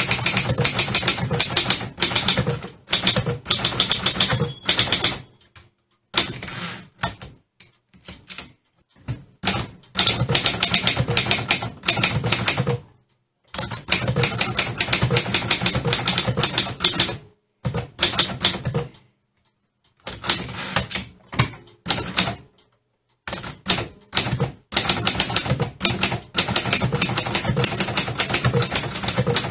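Typewriter typing in fast runs of sharp key strikes. The runs stop dead several times and start again. A brief ring sounds about four seconds in.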